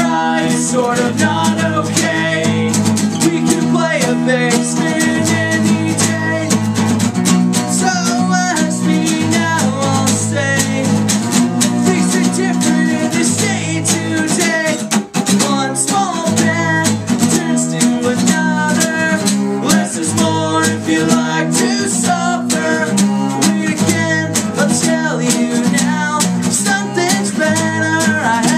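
A song with guitar, a regular beat and a singing voice.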